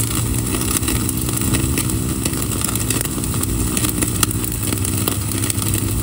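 Propane infrared broiler burner of a Gaspro 1500°F steak grill running at full heat: a steady low roar with a hum, with scattered crackles and pops from the ribeye searing beneath it.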